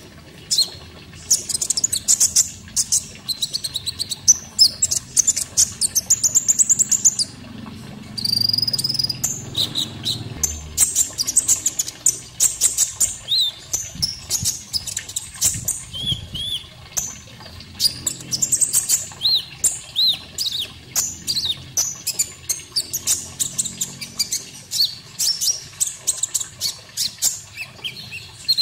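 Konin songbird singing a long run of rapid high chirps, trills and short whistled notes, as in a masteran recording for teaching captive birds to sing, over faint running water.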